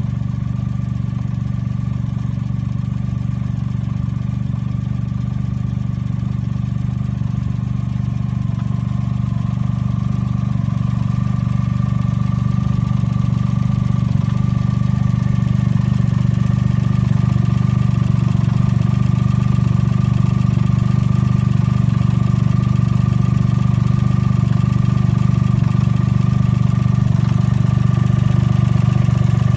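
Suzuki Cappuccino engine idling steadily, with a low hum and a thin steady whine above it, getting slightly louder as it goes.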